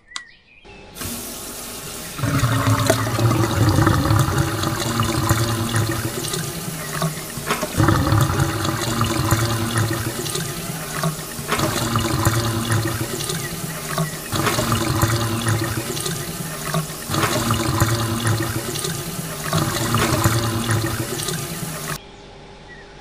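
Homemade mini water pump running: a small DC motor hums while water gushes from its plastic tube and splashes onto the soil. It starts about two seconds in, and the sound shifts abruptly every few seconds.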